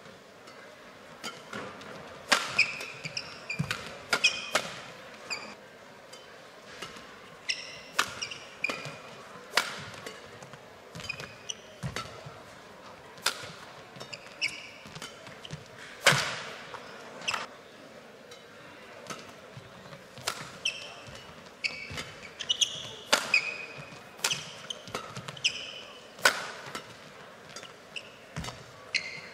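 Badminton rallies: sharp, irregular racket strikes on the shuttlecock, with short high squeaks of players' shoes on the court between the hits.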